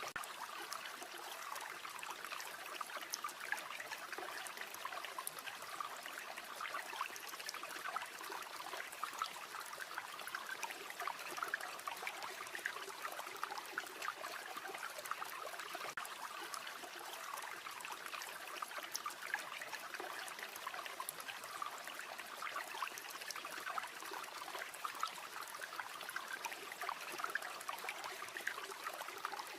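River water flowing and babbling steadily, with many small irregular ticks and splashes in the flow.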